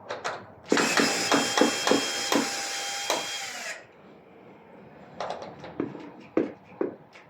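Cordless drill driver running for about three seconds with clicks through it, its pitch dropping as it stops: a door closer's fixing screws being driven out. This is followed by a scatter of light clicks and knocks.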